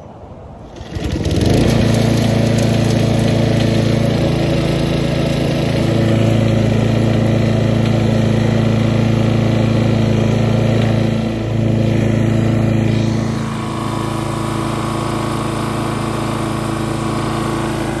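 Lawn mower engine, freshly rebuilt with its connecting rod cap machined to cut big-end clearance, starts about a second in and runs steadily at high speed, then drops to a lower, quieter speed near 13 seconds as the revs are turned down. No rod knock can be heard over it standing beside the mower, though the owner allows it may still be knocking.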